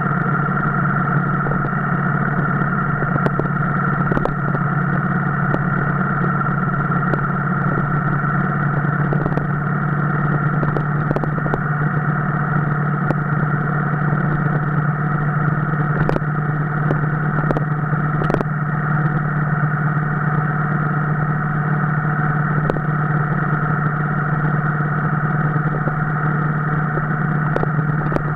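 Motorcycle engine running at a steady speed during a ride, its drone unchanging throughout, with a few faint clicks.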